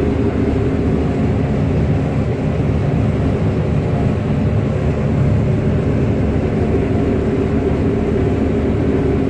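New Holland CX6090 combine harvester heard from inside its cab, running at working speed while cutting grain: a loud, steady mechanical drone with a constant low hum.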